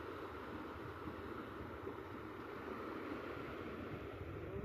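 Shallow stream rushing steadily over rocks and debris, a constant even wash of water.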